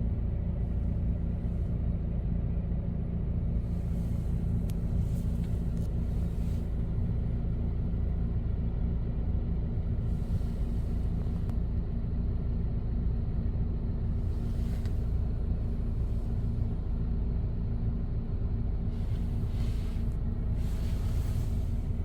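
Steady low mechanical rumble with a constant hum, even in level throughout, and a few faint brief hisses over it.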